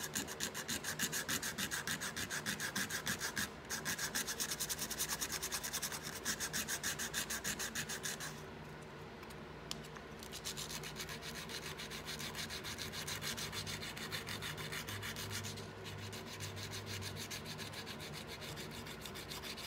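180-grit sandpaper rubbed by hand in quick back-and-forth strokes over a small piece of embossed thin tin, wearing down the raised pattern. The rubbing breaks off for about two seconds around the middle and briefly again later.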